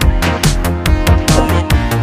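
Electronic background music, drum-and-bass style, with a fast steady beat and a heavy bass.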